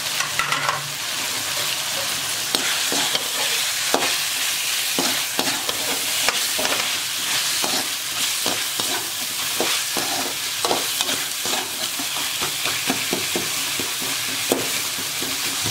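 Onion-tomato masala frying in oil in a metal kadai, a steady sizzle, with a perforated metal skimmer ladle scraping and clicking against the pan as freshly added drumstick pieces are stirred in.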